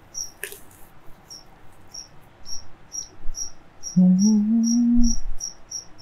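Cricket chirping steadily, about three short high chirps a second. About four seconds in comes a brief low hum, and near the start a single click.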